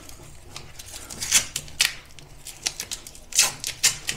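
Paper masking tape being pulled off the roll and torn, several short sharp rips, the loudest about a second and a half in and again near the end.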